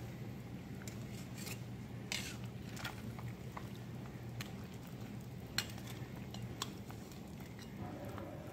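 Metal tongs clicking and scraping against a metal pot as pork ribs are turned in boiling liquid, with a sloshing splash about two seconds in. A steady low hum runs underneath.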